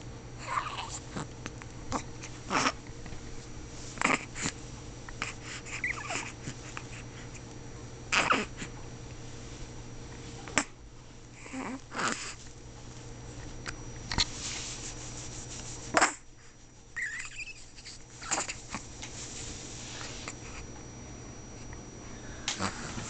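Newborn baby's small grunts and squeaks, short and scattered, a few of them rising and falling in pitch, with a steady low hum underneath.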